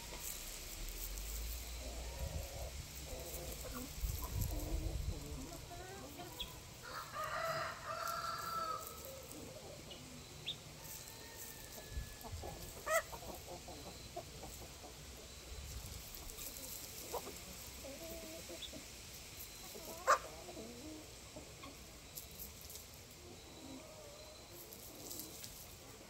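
Free-range chickens: a rooster crows once, about two seconds long, some seven seconds in, amid scattered clucks and short calls. Two sharp knocks stand out, the louder one about three quarters of the way through.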